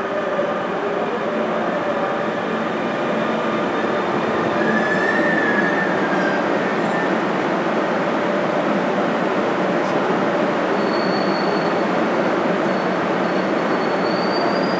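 A Lima Metro Line 1 Series 9000 electric train pulls into the station and brakes to a stop. Its falling motor whine fades in the first second, a brief thin squeal comes about five seconds in, and steady rumble and hiss continue while it stands at the platform.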